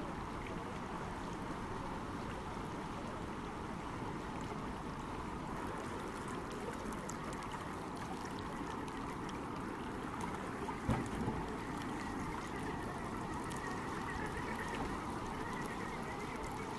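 Steady rush of water flowing over rock in a shallow stream, with a brief knock about eleven seconds in.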